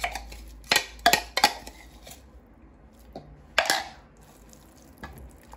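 Kitchen utensils knocking against a glass mixing bowl: a few sharp clinks, three in quick succession and one more a couple of seconds later, as a yogurt sauce is whisked by hand.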